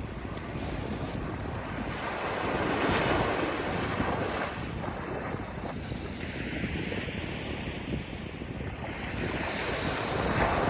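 Ocean waves breaking and washing on a shore, with wind buffeting the microphone; the surf swells up about three seconds in and again near the end.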